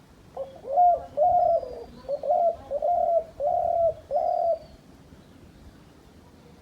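Dove cooing: a rhythmic run of about six or seven short coos over some four seconds, then it stops. A faint high chirp from another bird is heard twice.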